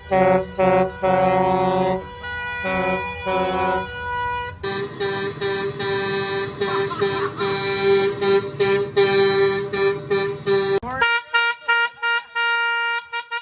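Truck air horns honking: a string of short blasts, then one long held blast, and about eleven seconds in an abrupt change to a fast run of short toots, several a second.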